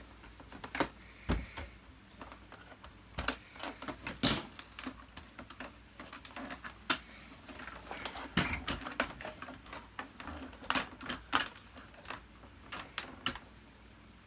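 Irregular clicks and knocks of plastic vacuum-cleaner parts and tools being handled during disassembly, a few sharper knocks standing out among lighter clicking.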